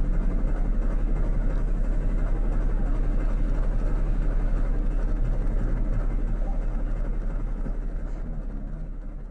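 Steady low rumble of a moving vehicle, with a fast flutter in loudness, fading away over the last couple of seconds.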